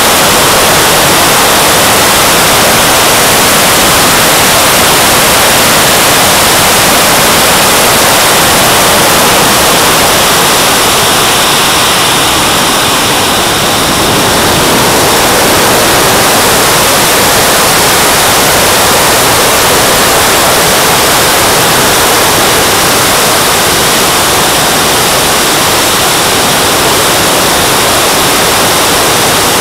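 Loud, steady rushing noise of a model jet's JetCat turbine and the airflow in flight, picked up by a camera riding on the airframe right behind the engine nacelle. It dips slightly about halfway through.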